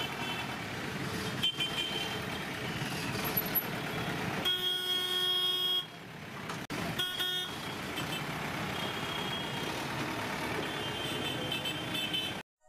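Tata truck engine running as the truck pulls away through street traffic. A vehicle horn sounds once for over a second about four and a half seconds in, then briefly again about a second later. The sound cuts off just before the end.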